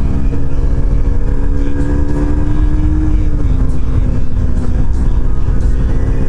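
KTM RC 200's single-cylinder engine running steadily as the motorcycle cruises, its note holding and then dropping in pitch a little past halfway, under heavy wind rumble on the microphone.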